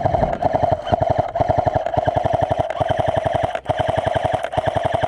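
Electric airsoft gun firing long full-auto bursts: a rapid, even rattle of shots over the steady whine of the gearbox motor, briefly broken about three and a half seconds in. This is sustained spraying fire at an opponent.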